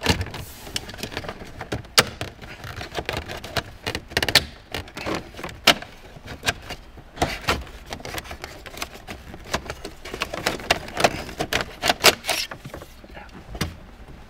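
Plastic center-console trim of a Porsche 987 Boxster being pulled up and out by hand, with irregular clicks and knocks as clips release and the panels are handled.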